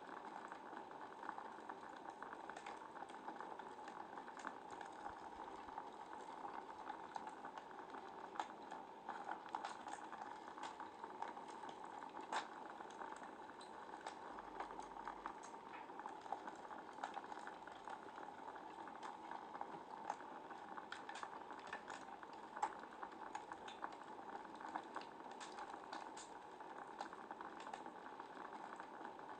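Wood fire in a fireplace crackling: a faint, steady hiss with frequent small sharp pops, and two louder pops, one near the middle and one about three quarters through.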